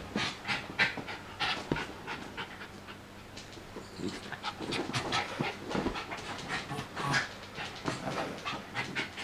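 Small dog panting hard and snuffling in quick, irregular breaths as it plays, with scuffling on the sofa fabric.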